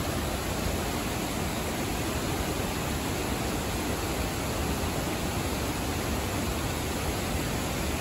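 The Agua Azul cascades rushing steadily, white water pouring over pale rock terraces into the river below.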